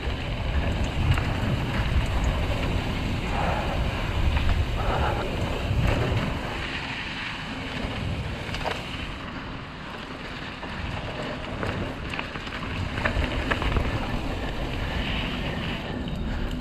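Wind rushing over the microphone of a mountain bike riding down a dirt trail, with tyre noise and a few scattered clicks and rattles from the bike.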